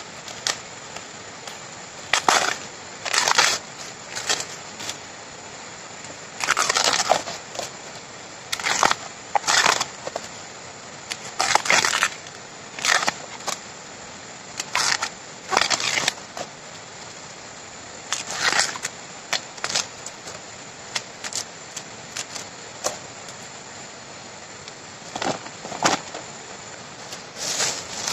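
The tough outer sheath of a freshly cut bamboo shoot being torn and stripped off by hand. It comes in irregular crackly rips, often two or three close together, with pauses between.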